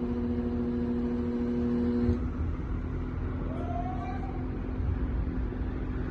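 Locked compressor of a TCL air conditioner humming loudly while powered without turning over, then cutting off abruptly about two seconds in, as a stalled compressor does when its overload trips; a low rumble runs on underneath.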